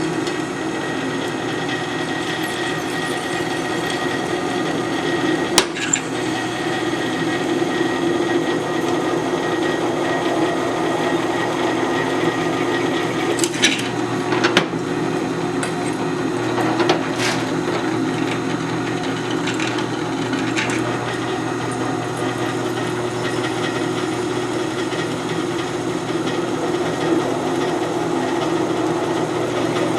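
Power drill running steadily, boring holes through flat steel bar stock, with a few sharp clicks and knocks along the way.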